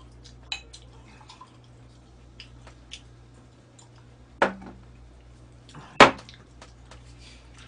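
Beer poured from a bottle into a glass, with small clinks and ticks of glassware and tableware over a steady low hum. There are two sharp knocks, about four and a half and six seconds in, the second the louder.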